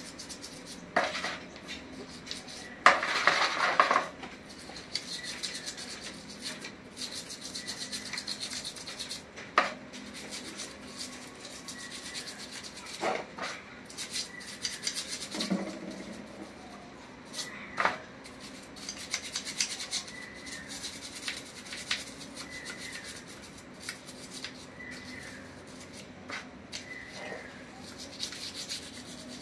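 Brush scrubbing a petrol-soaked Honda Livo carburetor body, in irregular scratchy strokes, loudest about three seconds in, with scattered sharp clicks.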